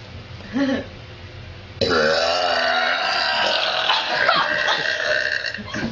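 A woman's long, drawn-out belch. It starts suddenly about two seconds in and lasts about four seconds, with a wavering pitch.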